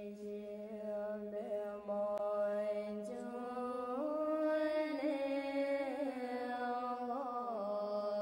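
Mantra chanting: voices hold one steady low drone note. About three seconds in, a second, higher note rises above it, holds, and slides back down near the end.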